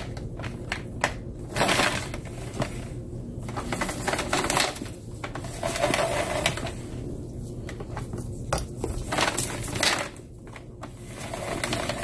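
Power cord of a Hoover WindTunnel 3 Pro upright being pulled out and reeled back in by its cord rewinder: an irregular run of plastic clicks and rattles with the cord scraping through the housing. The rewinder is slow, and the cord is being worked in and out to make it retract better.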